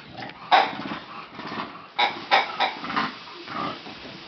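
A bulldog grunting in short, noisy bursts while at play: one about half a second in, then several close together near the middle.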